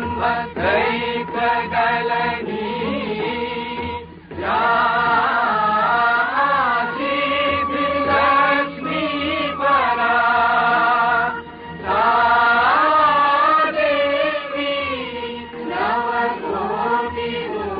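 Devotional chant sung over a steady drone, the voice gliding and bending between notes, with two short breaks, about four seconds in and again near the middle.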